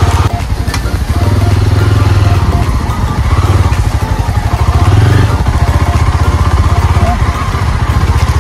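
Motorcycle engine running while being ridden along a rough dirt trail, with a fast low pulse. The engine swells louder as the throttle opens, about a second in and again around five seconds.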